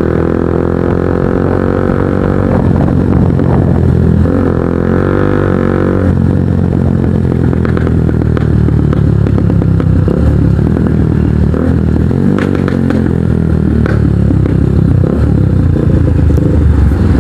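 Kawasaki NS150 motorcycle engine running through an aftermarket Akrapovic exhaust while being ridden. Its pitch climbs for about two and a half seconds, then drops, and rises and falls with the throttle through the rest.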